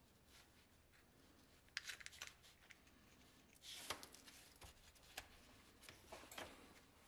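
Faint clicks and scraping of a steel pick prying a small metal hub out of a rubber toy tire: a cluster of small clicks about two seconds in, a short scrape about four seconds in as the hub comes free, then a couple of light taps.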